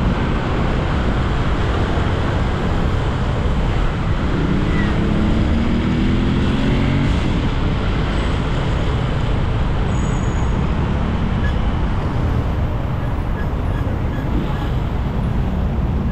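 Riding a motorcycle in city traffic: steady wind rush on the microphone over engine and road noise, with an engine rising in pitch as it speeds up about four seconds in.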